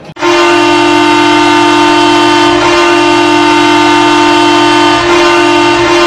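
Milwaukee Admirals hockey goal horn sounding one long, steady, low blast that starts abruptly just after the start and holds.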